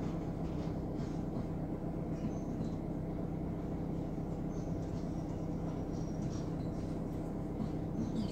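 Long container freight train rolling past a level crossing, heard from inside a waiting car: a steady low rumble and hum with faint squeaks now and then.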